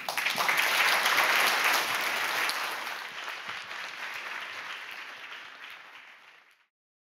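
Audience applauding, loudest over the first couple of seconds and then dying away, cut off abruptly near the end.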